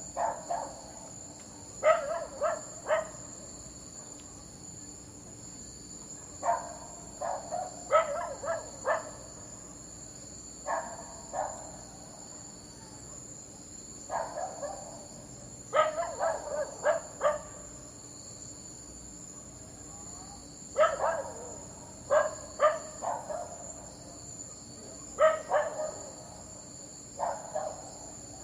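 A dog barking in short bursts of two to four sharp barks every few seconds, over a steady, high-pitched insect chorus.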